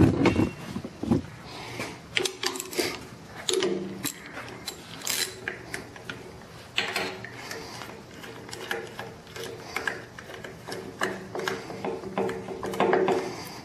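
A hand ratchet with a 13 mm socket and extension clicking in irregular runs as it works the rear mounting bolts of a CP3 injection pump on a 5.9 Cummins engine. A loud metallic knock comes right at the start.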